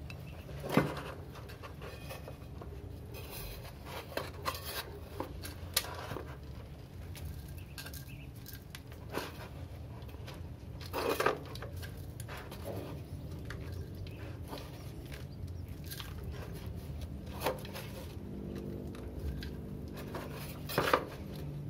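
Scattered light taps and clicks, with sharper ones about a second in, about eleven seconds in and near the end, as white filler is worked into the gap around a pipe through a rendered wall to seal the leak. A steady low hum runs underneath.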